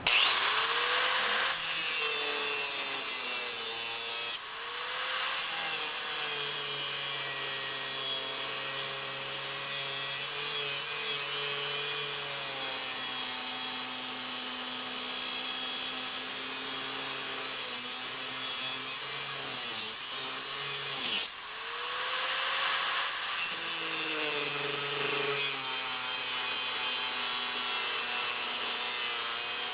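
Angle grinder cutting through the hardened steel body of a Kryptonite U-lock, grinding steadily. The motor's pitch sags and rises as the wheel bites and eases off, with a brief letup about two-thirds of the way through.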